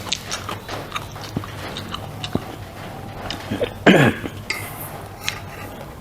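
Close-miked chewing and biting of food, with many short wet mouth clicks and one louder, sudden mouth sound about four seconds in.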